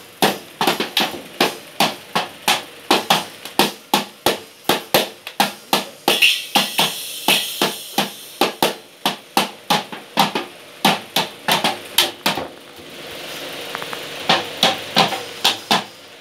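Toy drum kit beaten unevenly with sticks by a small child: loud, irregular hits on the little drums and thin metal cymbals, about three a second, with a short break in the hitting about twelve seconds in.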